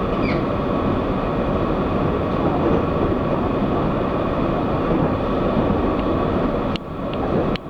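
Onboard running sound of an EMU800 electric multiple unit travelling at speed: a steady rumble of wheels on rail. Near the end the sound briefly dips twice, with a few sharp clicks.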